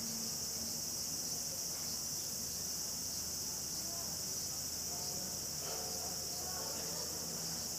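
Steady, high-pitched chirring of insects, unbroken throughout.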